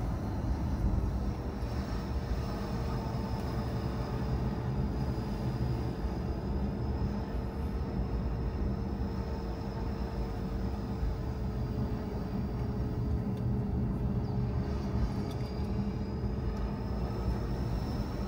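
A car driving, heard steadily: a low, even rumble of engine and tyres on the road with a faint steady whine over it.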